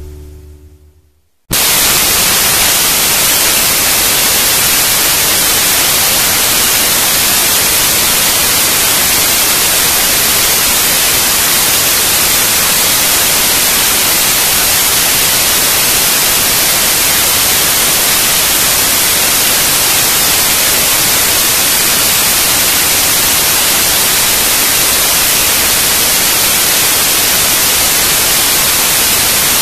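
Loud, steady white-noise hiss like static, cutting in abruptly about a second and a half in, just after background music fades out.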